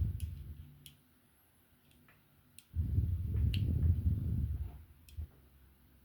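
Small scattered clicks and taps from tiny diecast car parts being handled as a rear axle goes in. There are two spells of dull, low handling noise, a short one at the start and a longer one from about the middle to near the end.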